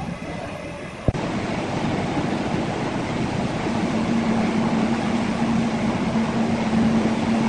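Large horizontal band sawmill running, a steady loud machine noise. About a second in a sharp click comes and the sound jumps louder, and about halfway a steady low hum joins in.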